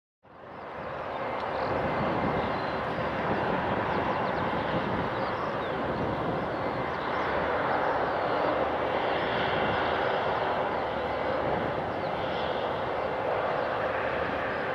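Airbus A320-200's IAE V2500 jet engines on final approach: steady jet engine noise that fades in over the first second or so.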